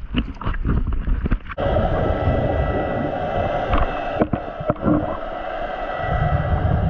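Water knocking and splashing around a camera in a waterproof housing, then, about a second and a half in, a sudden steady rushing noise underwater with a faint steady whine through it.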